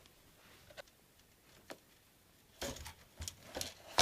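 Clicks and light knocks of hard plastic and metal console parts being handled on a table. A couple of faint ticks come first, then a cluster of clicks starts about two and a half seconds in, with a sharp knock at the end.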